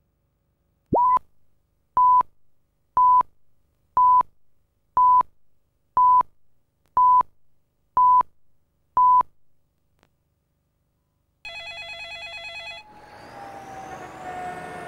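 Countdown-leader beeps: nine short, identical steady beeps, one each second, then a pause. About eleven seconds in, a telephone starts ringing in a short burst, followed by a noisy wash with a gliding tone.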